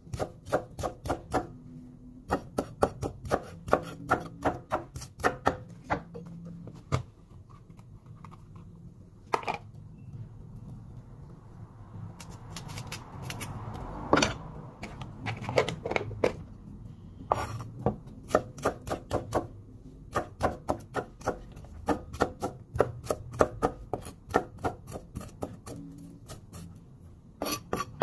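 Large kitchen knife chopping an onion on a wooden cutting board: quick runs of sharp knocks, about five a second, with short pauses between runs.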